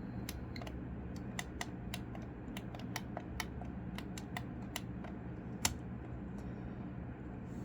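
Small tactile push buttons on a DIY digital clock kit's circuit board being clicked with short, irregular presses, a few clicks a second, one louder click a little before the end. The short presses are not registering: the buttons only respond when pressed and held.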